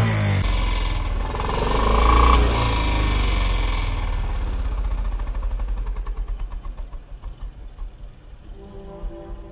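Honda 125 motorcycle's single-cylinder four-stroke engine running, rising briefly about two seconds in. From about six seconds on its firing beats slow and fade away as the engine dies down.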